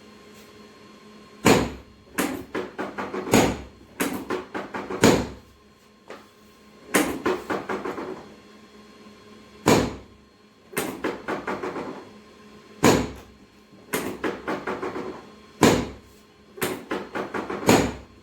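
Repeated sharp knocks, about nine of them one to three seconds apart. Each is followed by a brief run of lighter clattering clicks.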